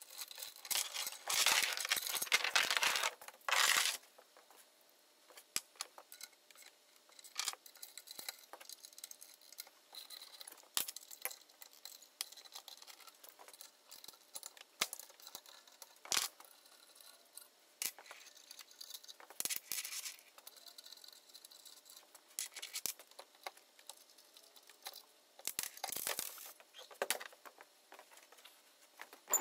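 Small metal hand tools clinking and rattling as they are handled, with scattered sharp clicks. There is a dense stretch of jangling in the first few seconds and two shorter ones later.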